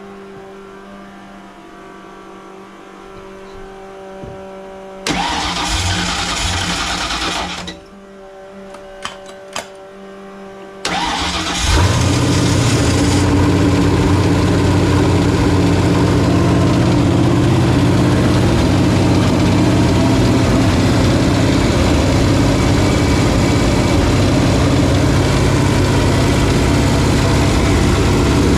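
Carbureted Ford Foxbody Mustang engine being started. There is a few seconds of cranking, then a pause with a few clicks. It cranks again, catches about twelve seconds in and keeps running steadily, with a carburetor that the owner takes to be faulty, plugged somewhere in the mid-range.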